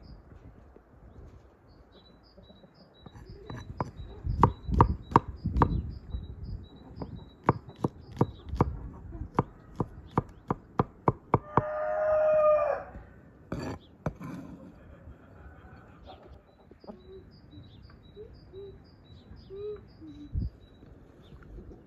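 A knife chopping garlic on a wooden board makes a run of sharp knocks. Then a rooster crows once, followed later by a few soft clucks, while a small bird chirps repeatedly in the background.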